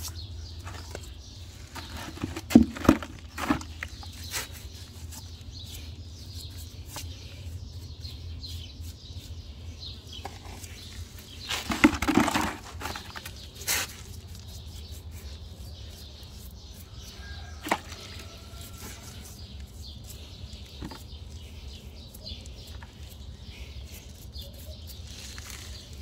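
Brush scrubbing a horse's lower leg and hoof: scattered scrapes and knocks, with a louder rustling burst about halfway through, over a steady low hum.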